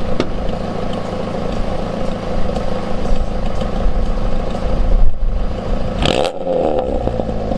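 Peugeot 206 engine idling, warm, through a newly fitted Magnaflow aftermarket exhaust, a steady loud note; about six seconds in a quick rev, its pitch falling back to idle.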